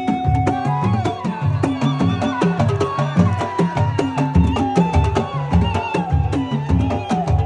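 Instrumental Gulf Arabic folk-style music: a melody instrument plays a line with small pitch bends over a steady, repeating hand-drum beat.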